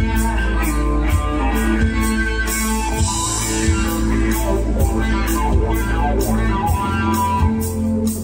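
Live rock band playing: electric guitar lines over a steady low bass and an even beat of about two drum hits a second.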